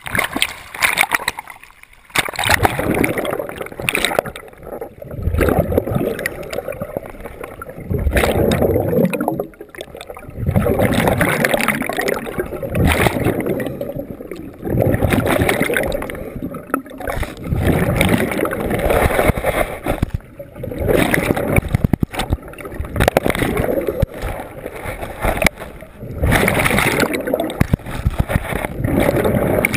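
Scuba diver breathing through a regulator underwater: gurgling exhaled bubbles come in bursts about every three to four seconds, with short lulls between breaths.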